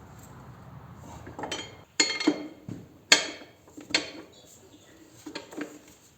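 Metal tools and parts clinking and clanking against each other, about seven sharp ringing strikes at uneven intervals, the loudest about two and three seconds in.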